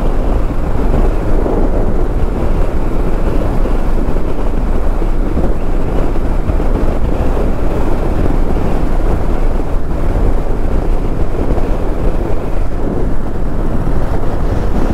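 Steady wind rushing over a helmet-mounted microphone, over the low drone of a 2021 Honda Rebel 1100 DCT's parallel-twin engine cruising at about 40 mph.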